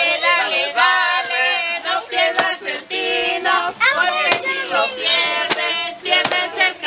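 A group of people, children's voices among them, singing a song together, with a few sharp claps through the singing.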